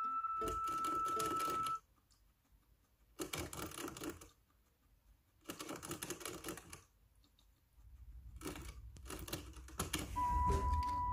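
Guinea pig drinking from a hanging water bottle: quick runs of clicks at the metal spout, in three bouts of about a second each. Background music plays at the start and comes back near the end.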